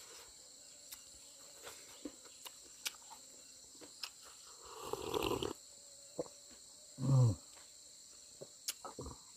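Steady high chorus of crickets and other insects, with scattered small clicks and taps from someone eating. A short noisy rush comes about five seconds in, and a brief voiced murmur about seven seconds in.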